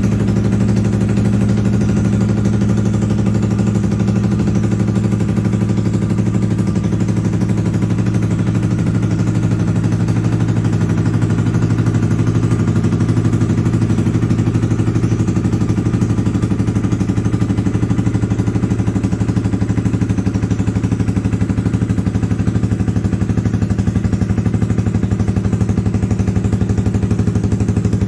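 2014 Yamaha YZF-R125's 125 cc single-cylinder four-stroke engine idling steadily through an aftermarket Lextek exhaust. It runs evenly, with no knocks or bangs from the engine.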